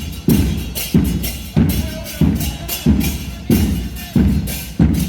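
Murga parade percussion: a steady beat of heavy drum strikes about one and a half a second, each with a bright crash on top that decays before the next stroke.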